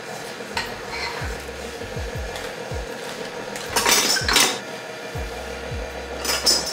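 Metal measuring cup clinking and clattering against a stainless steel mixing bowl, loudest about four seconds in and again near the end, over background music with a deep bass beat.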